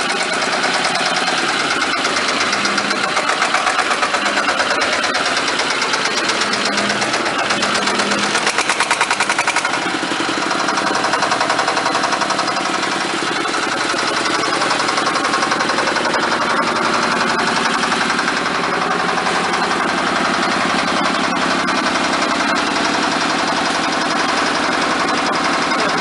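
Small diesel engine of a concrete mixer running steadily, a rapid, even knocking beat from its firing, shortly after being started. Its sound shifts slightly about ten seconds in.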